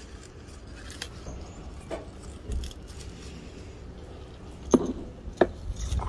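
A few sharp clicks and light knocks from hand-picking sweet peppers among the leaves of potted plants, over a low steady rumble. The loudest knock comes about three-quarters of the way in.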